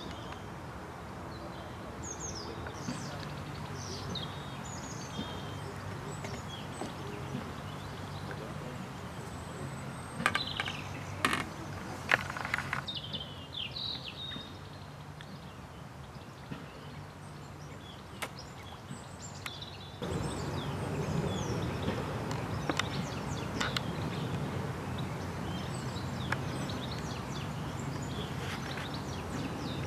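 Outdoor lakeside ambience: small birds chirping and singing over a steady low hum. A few sharp clicks sound together a little after a third of the way in, and the background grows louder about two-thirds through.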